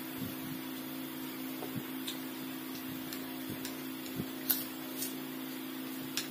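Quiet eating sounds, with a few short clicks and smacks of chewing and utensils. The sharpest come about four and a half and five seconds in, over a steady low hum.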